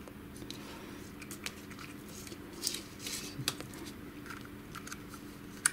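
Faint scattered clicks and rubbing of plastic and metal parts as the heating element is worked into an HP LaserJet 6L fuser frame, with a sharper click at the very end as it is fixed in place. A low steady hum runs underneath.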